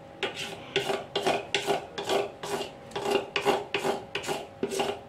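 A metal spoon scraping thick chocolate cake batter from the inside of a stainless steel mixing bowl, in quick repeated strokes of a little over two a second.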